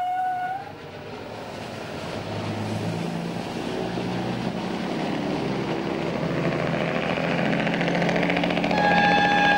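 Diesel railbus engine running and slowly growing louder, with a steady low hum. About nine seconds in, a single held horn tone sounds over it.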